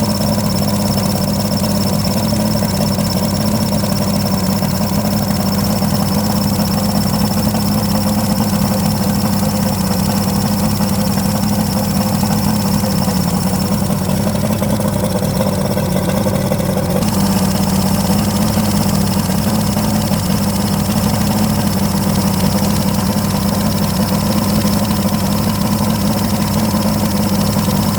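Carbureted engine idling steadily at an even pitch, with a faint high whine over it. The engine is the one whose carburettor 'sneezes', spitting back through the intake.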